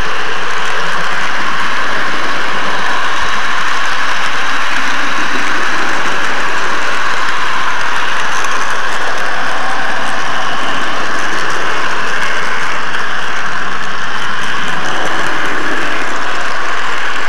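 N gauge model train running on its track with a camera riding on board: the wheels on the rails and the small motor make a loud, steady whirring rattle right at the microphone.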